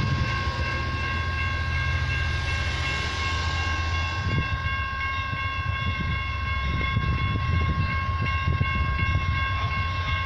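Railroad crossing warning bell ringing steadily while the crossing gates lower, over a continuous low rumble.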